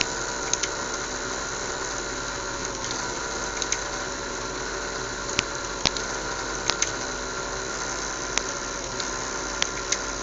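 Small fischertechnik electric motors with propellers running steadily, driven by the Arduino, with about a dozen irregular sharp clicks of keyboard or mouse over the hum.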